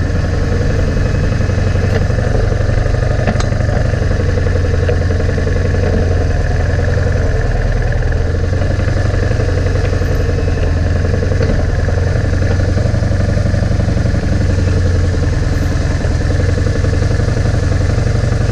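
BMW R 1150 R's air-cooled flat-twin boxer engine running steadily, heard from on the bike, with no revving up or down.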